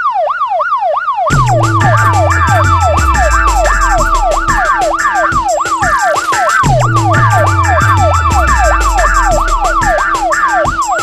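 Siren sweeping rapidly up and down, about three times a second. From about a second in, an electronic backing track with a fast drum beat and falling bass notes plays under it.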